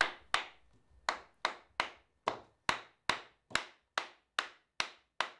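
Mallet repeatedly tapping the outer bearing case into the worm housing of a 1940 Fordson N tractor's rear axle to seat it. The blows are sharp and steady, about two and a half a second, with a brief pause near two seconds in.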